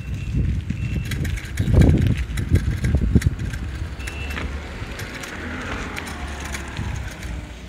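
Footsteps and handling thumps from a phone carried by hand across a dirt yard, over a steady low rumble, with the loudest thumps about two to three seconds in. A short high tone sounds briefly about four seconds in.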